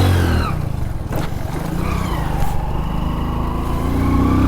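Hero Honda motorcycle with a modified exhaust sound, ridden on the road. The engine note drops off about half a second in, then climbs steadily near the end as it accelerates again.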